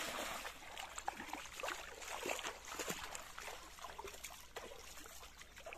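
Shallow pond water splashing and sloshing as people wade and drag a mesh net bag loaded with fish through it, with many short splashes and a sharper one at the start.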